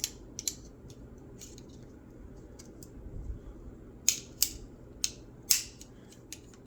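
Scissors used as a pry tool clicking and scraping against a Toyota Tacoma tailgate latch as a 3D-printed plastic bushing is levered in. A few scattered sharp clicks come first, then a run of louder ones in the second half.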